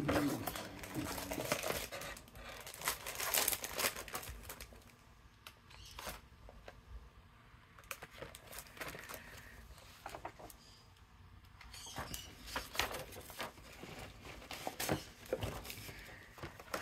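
Sheets of patterned paper and cardstock rustling and sliding as they are handled and shuffled, in irregular bursts of crinkles and light taps with a quieter stretch in the middle.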